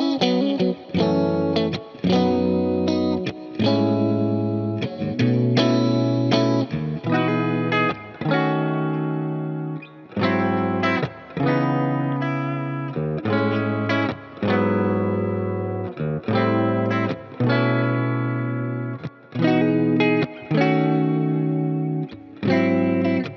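Fender Player Plus Nashville Telecaster electric guitar playing rhythmic chords, each held a second or two and then cut off sharply with a brief stop before the next.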